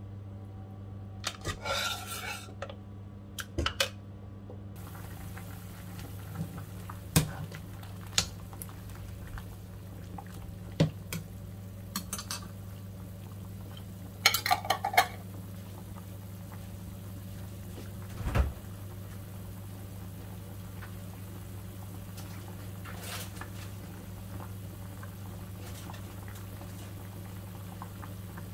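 A metal ladle clinking and scraping against a cooking pot while food is stirred: a dozen or so scattered knocks, with a quick run of them about halfway through, over a steady low hum.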